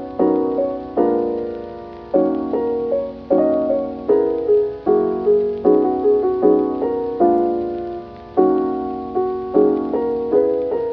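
Background music: keyboard chords struck in a steady rhythm, each note fading after it is played.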